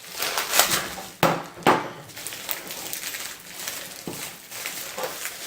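Handling of a package being opened: irregular rustling and scraping of packaging, with a few sharp knocks, two of them close together just over a second in.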